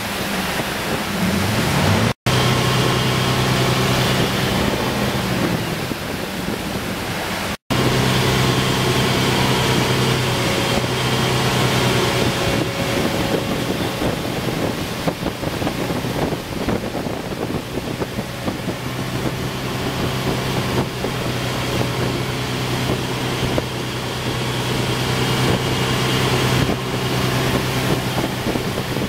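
Tow boat's engine running at steady speed, its pitch shifting in the first two seconds, over wind buffeting the microphone and the wake's water rushing. The sound cuts out briefly twice, near the start and about seven seconds in.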